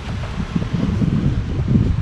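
Wind buffeting the microphone: an irregular, gusting low rumble.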